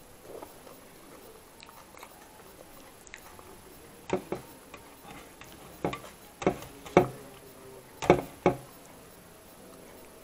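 A person chewing food close to a clip-on microphone: quiet eating at first, then a series of sharp crunches and mouth clicks, loudest between about four and nine seconds in.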